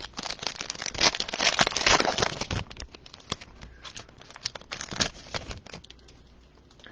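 Wrapper of a 2020 Prizm football card pack being torn open and crinkled, a dense, irregular crackling that thins out about five seconds in.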